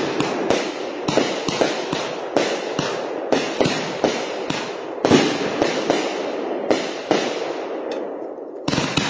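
Consumer-grade aerial repeater fireworks firing in quick succession, a sharp bang about three times a second. The shots thin out briefly near the end before another one goes off.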